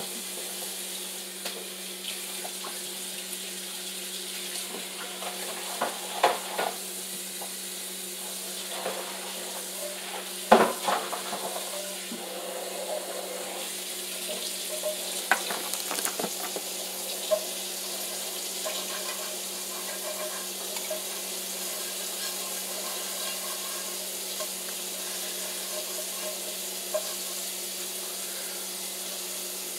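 Warm water running steadily from a kitchen tap into a sink, with a few knocks of kitchenware being handled, the loudest about ten seconds in.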